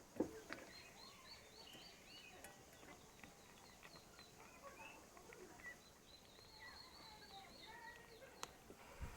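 Faint birds chirping, many short repeated notes, with a soft knock just after the start and another near the end.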